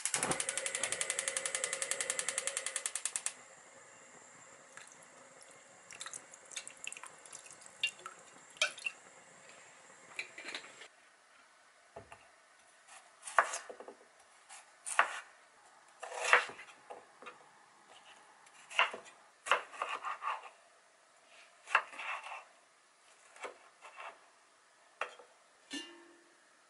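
Gas hob igniter clicking rapidly for about three seconds as the burner knob is turned. Then scattered knocks and taps of kitchen work, including a knife slicing peeled potatoes on a wooden cutting board. Near the end, the lid of an enamel pot is handled.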